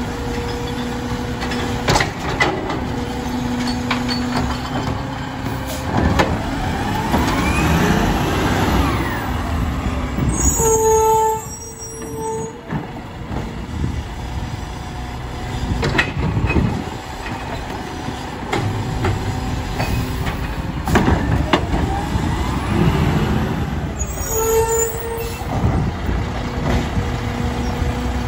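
Labrie Automizer side-loading garbage truck on a Mack LR chassis at work: the engine runs steadily while the hydraulic arm grabs, lifts and dumps carts, its whine rising and falling twice, with knocks of carts and the arm and bursts of air-brake hiss as the truck stops and moves between stops.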